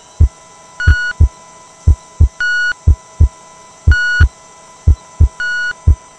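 Heartbeat sound effect: a double thump about once a second, with a short high electronic beep every second and a half or so over a steady tone.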